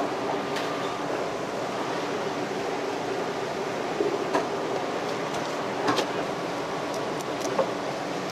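Steady background noise of a fish market, with a few light knocks on the wooden cutting board as the filleting knife is handled.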